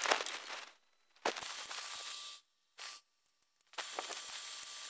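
Handling noise from working heavy electrical wire into terminals: rustling and scattered clicks, in short stretches broken by two spells of dead silence.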